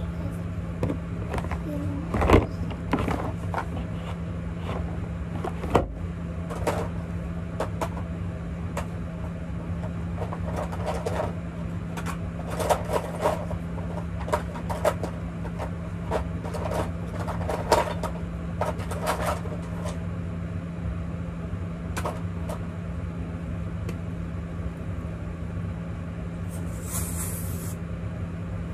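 Clicks, knocks and rustles of small containers and caps being handled, over a steady low hum. Near the end comes a short spray from a spray bottle, lasting about a second.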